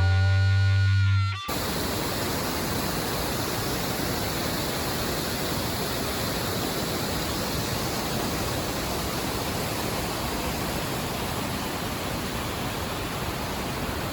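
Rhine Falls: a steady, even rush of heavy falling water. It begins abruptly about a second and a half in, where a held music chord cuts off.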